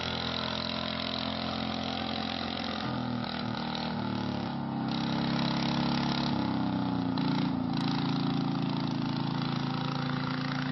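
Engine of a ploughing machine running steadily, its pitch shifting up and down several times from about three seconds in, and louder from about five seconds in.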